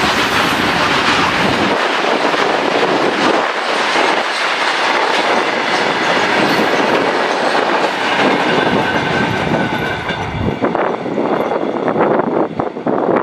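Loaded coal freight wagons rolling past close by: a steady rumble and clickety-clack of wheels over rail joints. There are sharper, separate clacks in the last few seconds as the last wagons and the brake van go by.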